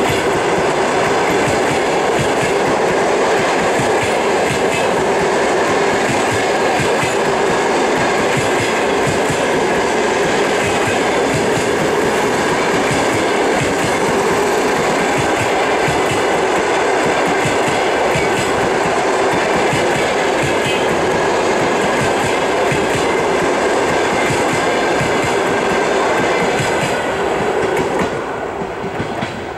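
Passenger coaches rolling past at speed, their wheels clattering steadily over the rail joints. The noise falls away near the end as the last coach goes by.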